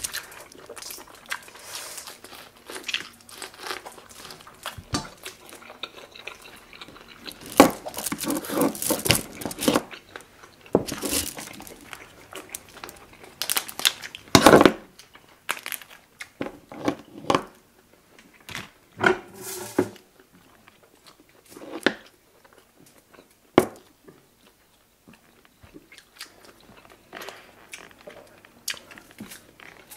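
Close-up eating sounds of seafood: chewing and biting with irregular crackles and cracks as lobster shell is broken apart by hand, louder in several bursts in the first two-thirds and quieter near the end.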